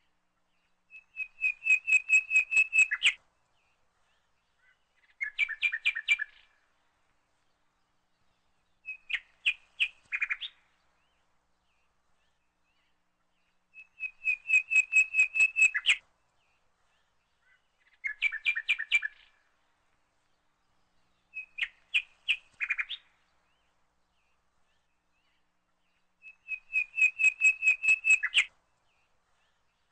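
Bird song: phrases of rapid, evenly spaced high chirps, each lasting one to two seconds, separated by a few seconds of silence. The same long-short-short run of phrases repeats about every twelve seconds.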